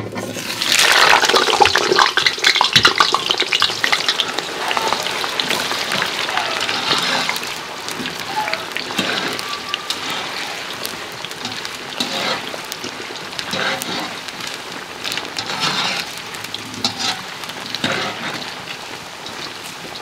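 Cubed raw potatoes dropped into hot deep oil in a large pot: a sudden burst of loud sizzling about a second in that eases into steady, vigorous frying. A wire skimmer stirs the potatoes now and then.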